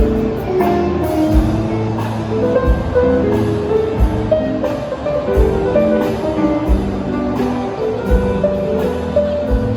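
Background music: melodic notes over a slow, steady beat.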